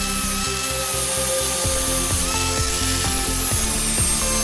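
Electric angle grinder running steadily, its disc grinding a small steel part and throwing sparks.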